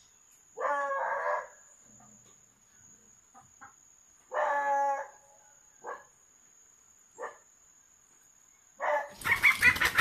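Chicken squawking: two drawn-out calls, then two short squawks. Near the end come loud squawks and rapid wing-flapping as the bird struggles, caught in a chicken trap.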